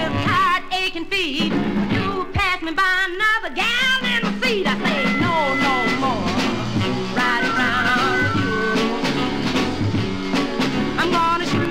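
Band music from a 45 rpm vinyl single playing an instrumental stretch with no lyrics sung.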